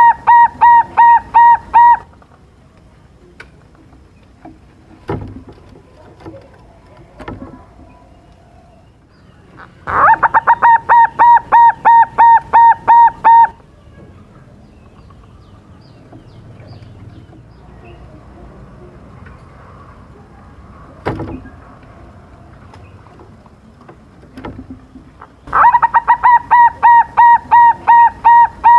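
Young silver-morph zebra dove (perkutut) singing in three bouts of rapid, evenly repeated cooing notes, each bout lasting two to four seconds: one at the start, one about ten seconds in and one near the end. A few faint knocks fall between the bouts. This is a 'gacor' lure song meant to make rival perkutut answer.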